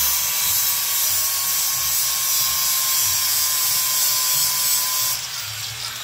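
Handheld electric grinder running against metal: a steady high hiss with a thin motor whine, easing off about five seconds in.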